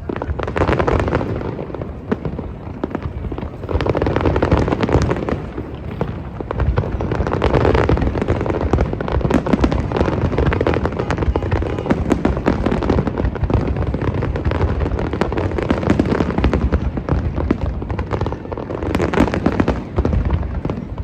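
A large fireworks display: a rapid, continuous barrage of shell bursts and crackling with a rumble underneath, swelling into louder volleys several times.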